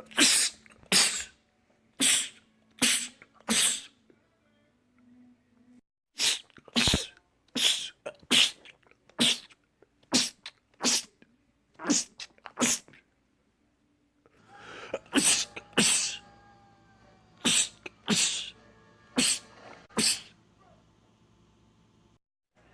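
A man sneezing over and over, about twenty short, sharp sneezes in three rapid clusters with brief pauses between them.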